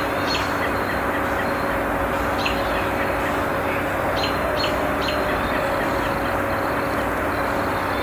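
Steady city background noise with a constant low hum, and bird chirps now and then, a few in quick succession about four seconds in.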